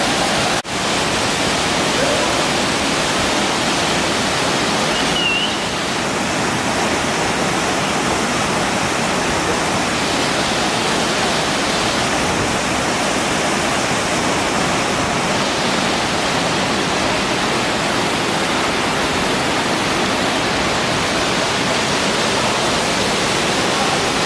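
Steady rush of water from a waterfall, an even unbroken noise that drops out for an instant about half a second in.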